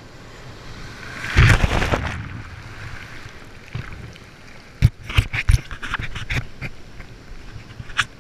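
Breaking surf washing around a camera at water level: a wave surges over it about a second in, then a run of sharp splashes and knocks about five to six and a half seconds in, and one more near the end.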